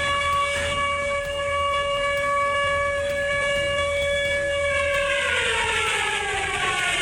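Outdoor warning siren sounding a single steady tone, then falling in pitch as it begins to wind down from about five seconds in; in this setting it is a tsunami warning siren.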